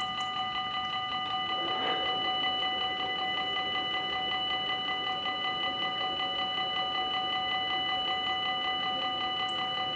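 Dutch level-crossing warning bells ringing rapidly and steadily while the barriers come down, signalling that the crossing is closing for an approaching train.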